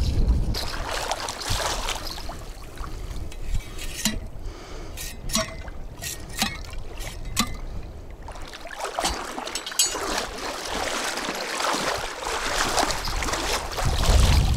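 Shallow river water splashing and trickling as a stake is worked into the bottom by hand, with a run of sharp clicks and taps between about four and eight seconds in.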